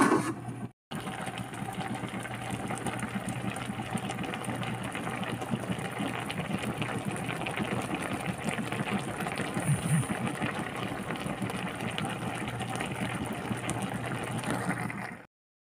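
Tilapia and vegetables in coconut-milk vinegar broth simmering in a wok: steady fine bubbling over a low hum, cutting off abruptly near the end.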